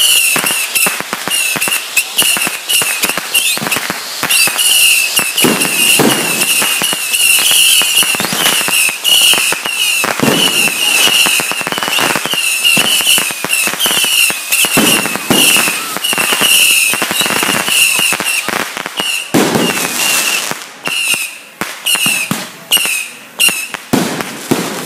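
Fireworks crackling and popping in a rapid, unbroken stream, with a high whistle that keeps coming and going. Toward the end the crackle thins into separate loud bangs.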